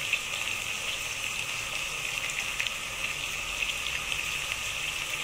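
Chicken pieces and potatoes sizzling in oil in a cooking pot: a steady frying hiss with scattered small crackles.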